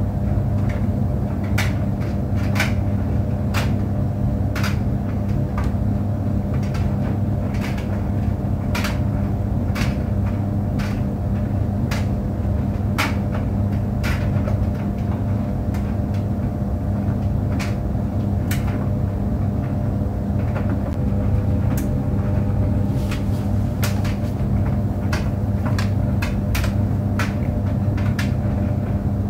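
Tumble clothes dryer running: a steady motor hum and drum rumble, with irregular light clicks and taps, like fasteners knocking against the turning drum, a little more frequent near the end.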